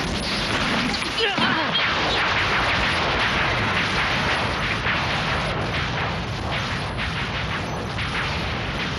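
Animated sound effects of a spaceship under attack: a continuous run of blasts and crackling electric discharge over a steady low rumble, with many quick sharp cracks and no let-up.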